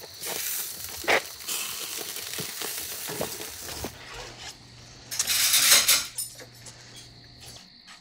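Kitchen sounds: plates and cutlery clinking and knocking as a table is set. A steady hiss fills the first half, and a louder rushing noise lasts about a second around five seconds in.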